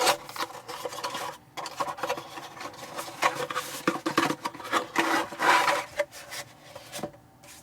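Product packaging being opened and handled by hand: irregular scraping and rustling of the box and its wrapping, easing off near the end.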